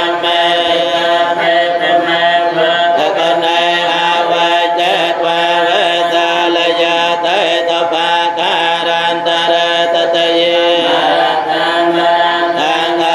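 Cambodian Buddhist paritta chanting in Pali: voices chanting together in long, steady, drawn-out tones that shift slowly in pitch, without pause.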